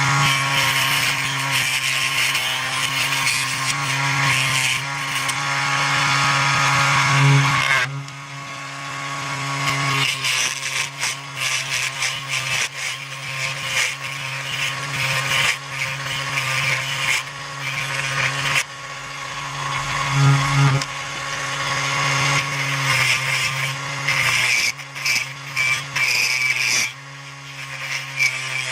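Raitool 80W 24V DC mini wood lathe running at a steady speed with a hum, while a hand turning tool scrapes a spinning piece of hardwood. The scraping stops briefly about eight seconds in, then resumes on and off.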